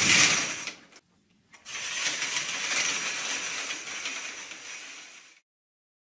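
Stage curtain sound effect: a curtain drawn shut, loudest just as it closes and ending about a second in, then after a short gap the curtain drawn open, a long steady swish that tapers slightly and cuts off about five seconds in.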